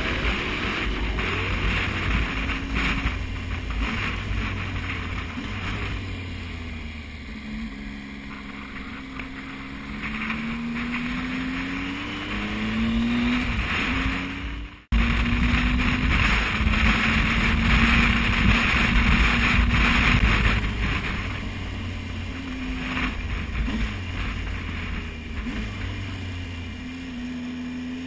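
Adventure motorcycle engine running under way, with heavy wind noise on the bike-mounted microphone. The engine note rises in several sweeps as it accelerates through the gears. About halfway through it breaks off abruptly at a cut, then runs on steadily.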